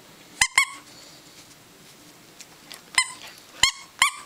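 A squeaky toy chewed by a Siberian husky puppy: short, sharp squeaks, each at the same pitch. A pair comes about half a second in, then three more in the last second and a half.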